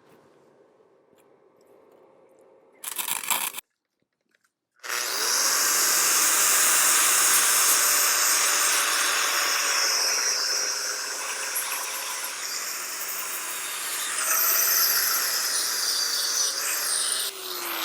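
Electric angle grinder working on steel: a short burst about three seconds in, then from about five seconds in a long, loud, steady run with the motor's hum underneath.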